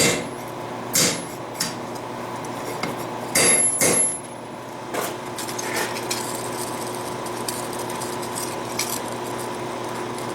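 Hand hammer striking hot steel on an anvil: about six irregular blows in the first half, one ringing brightly, as a forged ring is tapped into shape. After that only a steady background hum.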